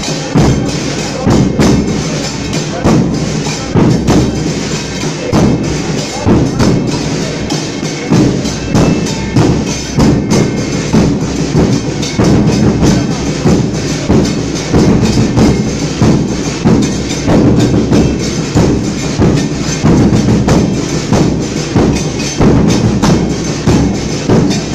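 Murga troupe performing: bass drums and cymbals beating a steady, driving rhythm.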